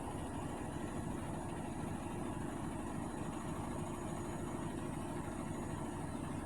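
Hotpoint Aquarius washing machine running with a steady, low rumbling hum.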